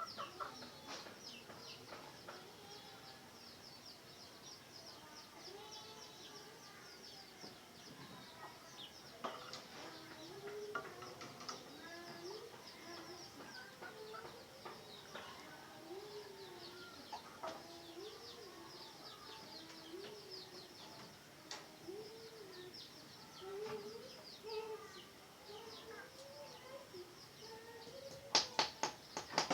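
Red junglefowl calling softly in the cage, a run of short low notes about once a second, over many faint high ticks. A quick run of loud clicks comes at the very end.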